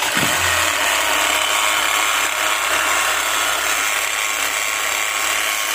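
Kia Mohave V6 CRDi diesel engine starting and running, with a steady whirring rasp like something rubbing; the mechanic traces the noise to a worn belt tensioner.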